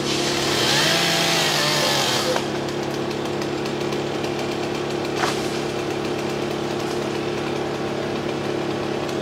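Tree-work chainsaw revved hard for about the first two seconds, its pitch bending, then dropping back to a steady engine drone. A single sharp knock comes about five seconds in.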